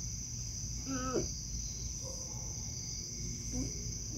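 Steady high-pitched trilling of insects over a low background hum, with a short pitched noise about a second in.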